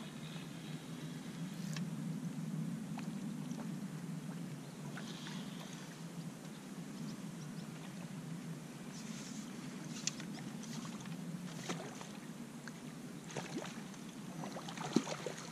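A steady low rumble with scattered small clicks, and light water splashes near the end as a small carp is drawn over the landing net.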